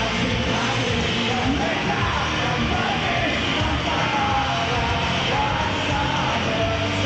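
Rock band playing live and loud, with yelled singing over the band.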